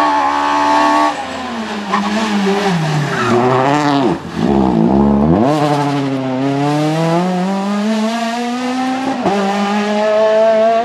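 Citroën C2 rally car's engine at high revs, then lifting off about a second in. The pitch falls as the car slows for a bend and bottoms out around the middle. It then climbs steadily as the car accelerates away, with a short dip near the end at a gear change.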